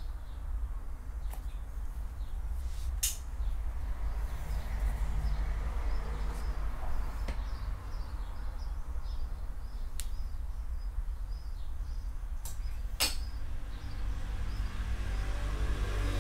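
A low steady rumble, with faint bird chirps and a few sharp clicks, the loudest about thirteen seconds in.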